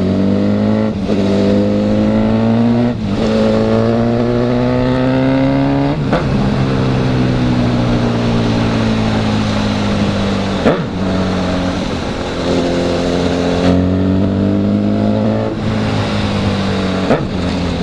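Honda CB1000 inline-four engine pulling hard through the gears: revs climb and drop sharply at each upshift, about a second in, around three seconds and around six seconds. The revs then fall away for several seconds as the bike slows, climb again through one more upshift, and ease off near the end, with wind and road rush underneath.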